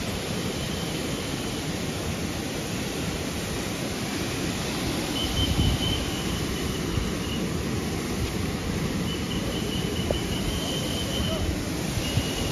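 Steady rushing of water pouring down a rock face, with a low rumble underneath.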